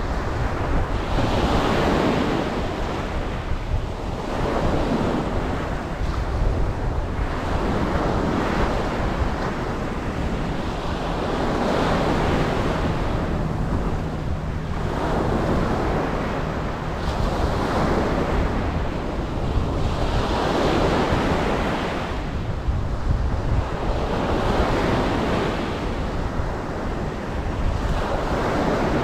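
Ocean surf breaking and washing in, swelling and fading about every three seconds, over a steady low rumble of wind on the microphone.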